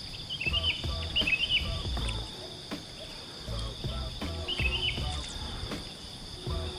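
Steady high-pitched insect chorus ringing throughout, with a bird giving short chirping calls three times and low rumbles of wind or handling on the microphone.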